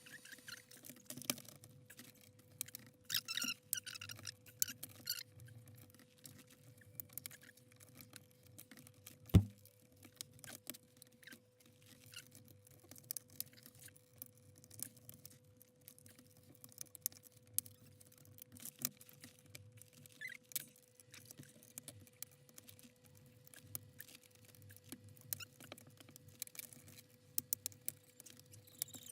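Plastic laptop bottom case being pried and worked loose by hand: scattered small clicks, taps and scrapes of plastic clips and panel, with one sharp, louder knock about nine seconds in. A faint steady whine sits underneath.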